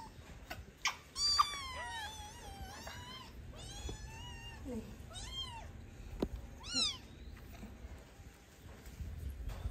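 Kittens meowing repeatedly in high, wavering calls, several in quick succession during the first half and a short one about seven seconds in, with a couple of light taps in between.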